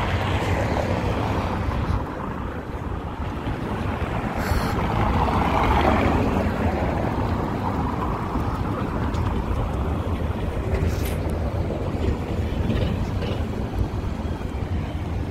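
Wind buffeting the microphone over steady outdoor traffic noise, swelling louder for a few seconds about five to six seconds in, as a vehicle passing would.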